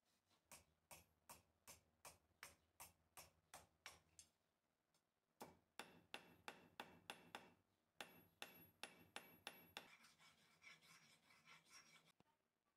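A hand file rasping across a small metal lock part held in a vise, in even strokes about three a second. From about five seconds in, a hammer strikes a metal rod on an anvil in quick ringing blows, about four a second; near the end the filing returns as a softer rasp.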